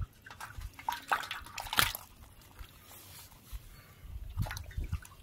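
Small wet fish being handled: scattered wet slaps and taps as a fish is set down flapping in a steel plate with a little water, and another is picked up off the dirt. The loudest tap is about two seconds in.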